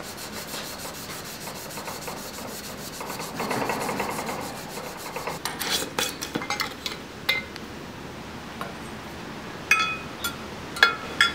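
Steady rubbing of sandpaper worked by hand along a steel knife blade, then sharp metal-on-glass clicks and clinks with a short ringing tone as a mason jar's metal lid is handled and the steel blade knocks against the glass jar; the loudest clinks come near the end.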